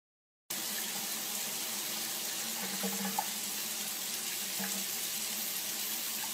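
Water from a shower spraying steadily into a bathtub and onto a cat, starting about half a second in.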